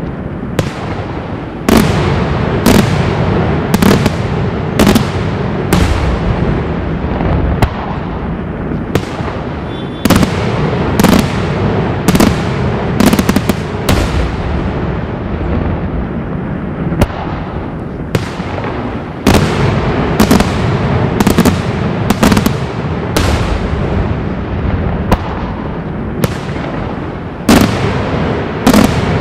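Daytime aerial fireworks: a continuous barrage of shells bursting, a dense rumble and crackle with loud sharp bangs every second or so.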